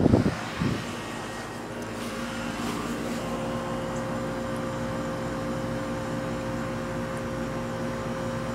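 A 1995 Miller 3.5-ton central air conditioner running, a steady mechanical hum with a few bumps in the first second; a higher hum tone grows stronger about three seconds in.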